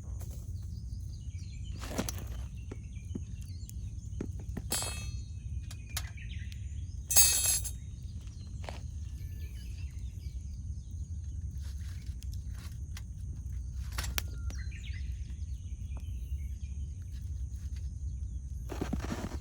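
Wood campfire crackling, with scattered sharp pops and one louder burst of crackling about seven seconds in, over a steady low rumble. Birds chirp faintly now and then.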